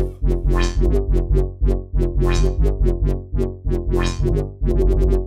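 UK bassline electronic dance track: heavy pulsing synth bass under a steady drum-machine beat, with a rising synth sweep three times.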